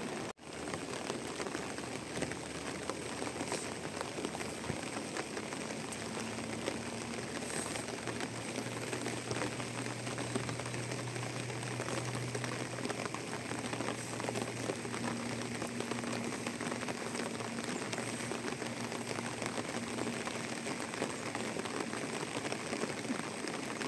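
Steady rain falling, an even crackling patter. A faint low hum sits underneath from about six seconds in until about twenty seconds in.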